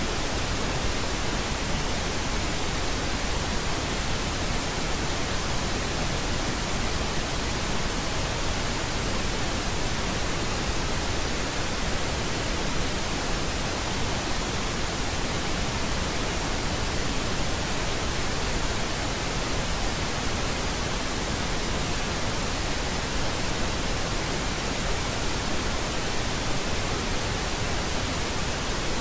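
Steady pink noise: an even, unchanging hiss spread across all pitches, with no events or variation.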